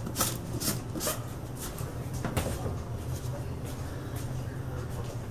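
Powdered sugar being tipped from a white plastic cup into a stainless steel mixing bowl: a few light taps and a soft rustle in the first couple of seconds, then quieter handling, over a steady low hum.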